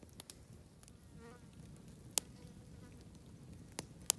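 An insect buzzing briefly about a second in, over a low steady background. Three sharp pops stand out as the loudest sounds, one about two seconds in and two close together near the end.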